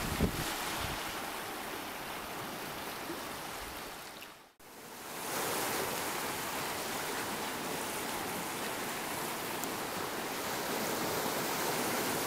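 Small waves washing in over a rocky shore, a steady hiss of moving water. It drops out briefly about four and a half seconds in, then carries on.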